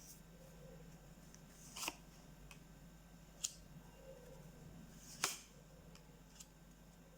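Tarot cards being handled on a table: three short, sharp clicks and taps spaced a second or two apart, with a couple of fainter ticks between them, over a faint steady hum.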